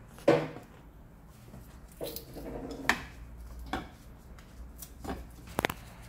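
Metal clinks and knocks from a mechanic handling a motorcycle wheel on its balancing stand: a handful of separate knocks, the loudest a ringing knock right at the start and a quick double click near the end.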